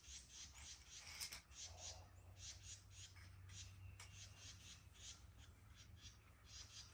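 Near silence, with faint high chirps repeating a few times a second over a low steady hum.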